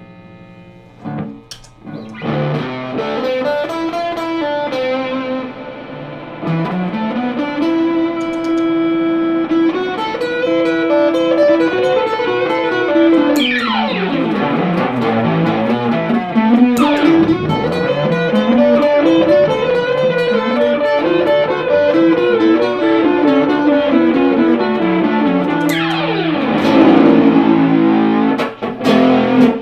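Electric guitar played through an Electro-Harmonix Super Ego+ synth pedal, its held notes sustained and layered into a continuous wash, with a few sweeping glides in pitch.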